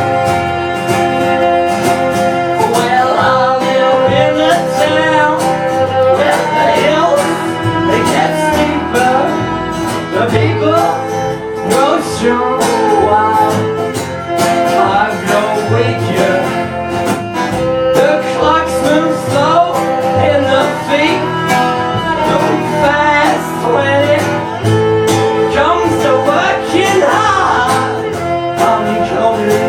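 Live band playing a country/bluegrass-style tune with guitar and fiddle, the fiddle sliding and wavering over a steady pulse.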